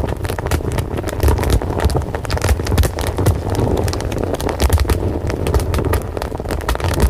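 Fire crackling, with many sharp irregular pops and snaps over a steady low rumble.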